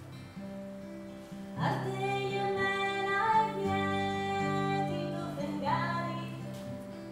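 Strummed acoustic guitar accompanying a woman singing. She comes in about a second and a half in with a phrase of long held notes, and a second phrase begins near the end.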